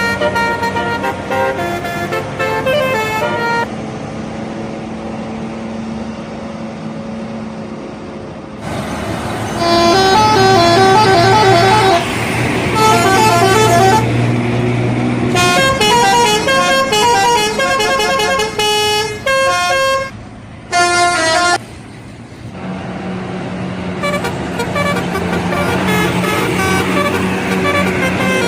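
Indonesian bus telolet horns playing quick multi-note tunes in several short phrases, loudest through the middle and cutting off abruptly after about 21 seconds. A bus engine runs steadily beneath.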